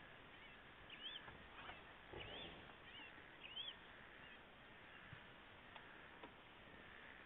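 A bird calling faintly in short, arched notes, about one a second for the first four seconds, then only faint background.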